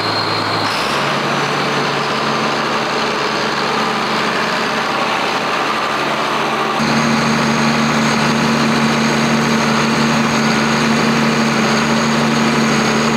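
John Deere 4455 tractor's six-cylinder diesel engine running steadily as the tractor is driven, with a thin high whine over the engine note. The sound steps up about a second in and again, louder, about seven seconds in.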